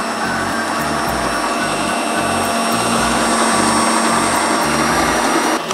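Electric stand mixer running steadily, its beaters whipping instant whipped cream powder and water in the bowl; the motor whirs with a faint steady whine and cuts off at the very end.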